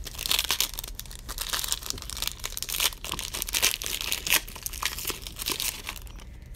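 Plastic-foil wrapper of a football trading-card pack crinkling and tearing as it is ripped open and handled; the crackling stops shortly before the end.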